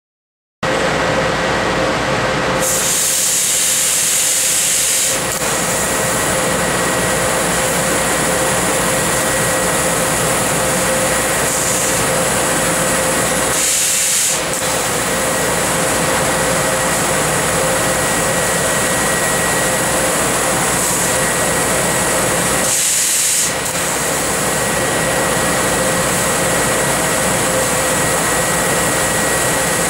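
Tanaka 6 kW laser cutting machine running on 1/4-inch mild steel: a loud, steady rush of noise with a constant hum, and louder high hissing spells about 3 seconds in, around 14 seconds in and around 23 seconds in, as the cutting head blows gas and pierces the plate.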